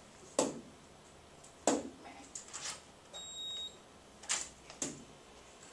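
A few sharp taps and knocks, and one short, high electronic beep a little over three seconds in.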